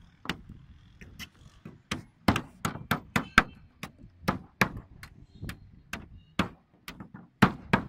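Hammers driving nails into wooden slats, a run of sharp, irregular strikes about two or three a second. At times the strikes overlap, as if from more than one hammer.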